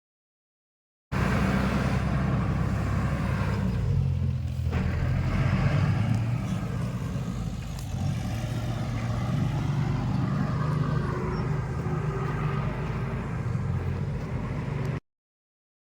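Heavy earthmoving machine's diesel engine running, a steady low drone whose pitch shifts a few times. It starts abruptly about a second in and cuts off abruptly about a second before the end.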